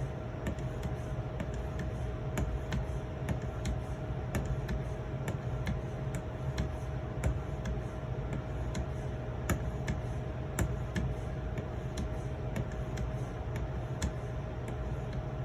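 Edge Pro sharpening stone being stroked along the edge of a steel knife blade: irregular light clicks and taps, a few louder than the rest, over a steady low hum.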